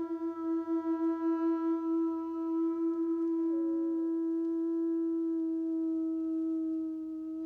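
A wolf's single long howl held at a steady pitch, wavering a little in loudness over its first couple of seconds.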